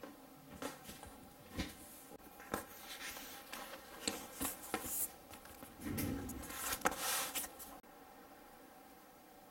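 Handling a fabric-covered ring-binder planner on a desk: a string of irregular clicks, taps and rustles as it is set down and opened, busiest around six to seven seconds in. It stops suddenly near the end, leaving only a faint steady background.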